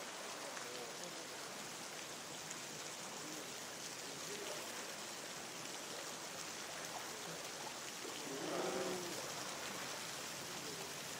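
Steady running water. A short wavering voice rises above it about eight and a half seconds in.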